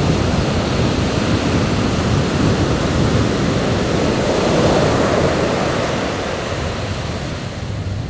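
Heavy shore-break surf: big waves breaking and whitewater rushing up the sand in a loud, steady wash that swells about halfway through and then eases.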